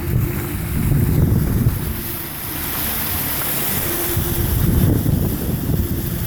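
Floodwater rushing down a street, with wind buffeting the phone's microphone and a vehicle engine running underneath.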